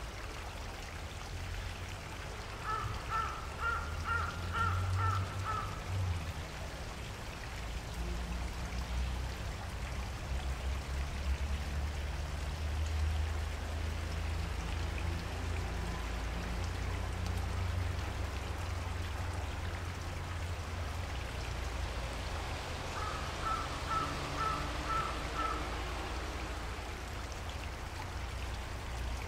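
Steady rush of flowing water, with a low rumble beneath it. A bird calls in two series of short, rapid repeated notes, about three seconds in and again near the end.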